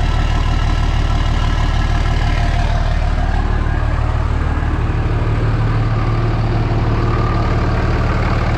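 A 2003 Dodge Ram 2500's 5.9-litre Cummins turbodiesel, a common-rail inline six, idling steadily with a fresh air filter on its intake. About three and a half seconds in the sound turns duller, with a stronger low hum.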